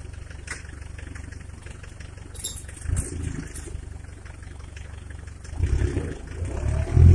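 Homemade tractor's Mercedes diesel engine running steadily at low speed, the engine note rising and getting louder briefly about three seconds in and again over the last second and a half as it takes load.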